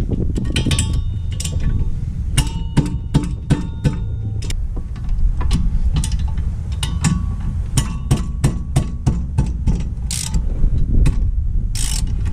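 Socket ratchet clicking in quick, irregular runs with metal clinks as the 14 mm rear wheel hub bolts are backed out, over a steady low rumble.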